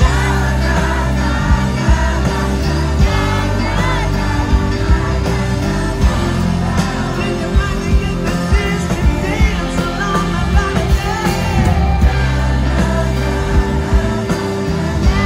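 Live rock band playing, heard from within the audience: a male lead singer over electric guitar, keyboards and drums, with a steady beat.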